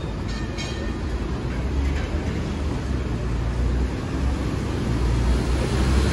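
Hong Kong double-decker electric tram running along its track, heard from on board: a steady low rumble, with a couple of short clicks about half a second in.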